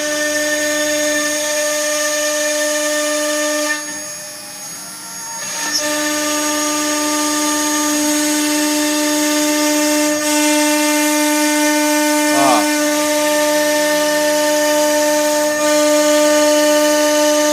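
CNC router spindle running with a steady whine while its bit cuts star outlines into a wood board. The whine drops away about four seconds in and comes back nearly two seconds later.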